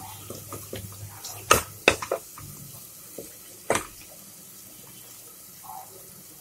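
Spoon knocking and scraping against a pressure cooker while stirring onions and chilli powder frying in oil, over a faint sizzle. There are several sharp knocks, the loudest about a second and a half in and again near four seconds in.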